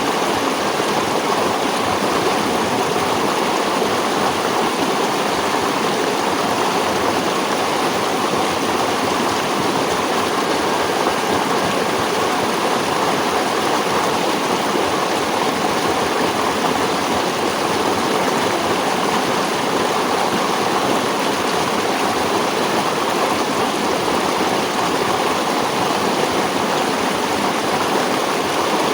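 Flowing stream water rushing steadily over rocks, an even continuous rush with no breaks.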